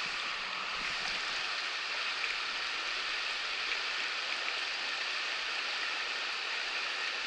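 Shallow, rocky river riffle rushing steadily over stones: an even, unbroken hiss of moving water.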